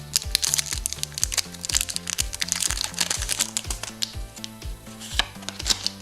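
Background music with a steady beat, over the crinkling and crackling of a foil booster-pack wrapper being handled and torn open.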